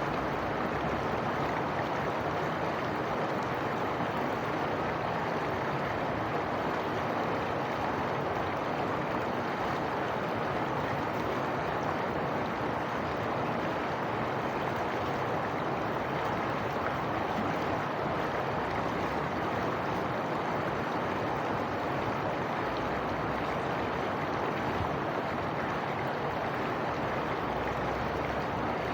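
Running water rushing steadily and evenly, with no separate splashes or breaks.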